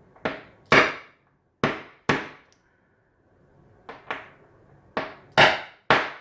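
A hammer striking a decapping rod to punch the spent primer out of a fired .308 rifle case: about nine sharp knocks, mostly in quick pairs, with short pauses between. The many blows are needed because the primer is sticky.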